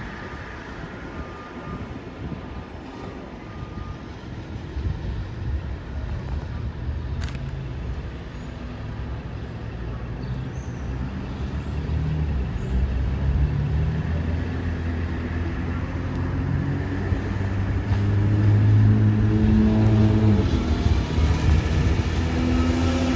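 Mack front-end loader garbage truck's diesel engine running as it approaches. It grows louder through the second half, its engine note rising and falling as it pulls up.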